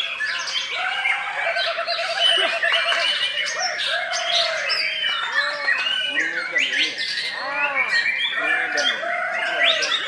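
A caged white-rumped shama (murai batu) in full song: an unbroken, varied string of arching whistled notes and sharp chips, with a fast trill of repeated notes a couple of seconds in.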